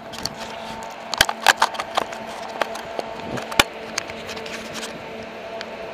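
A scatter of sharp clicks and knocks, a few of them loud, over a steady low hum made of several held tones. The knocks bunch up between about one and five seconds in and then thin out.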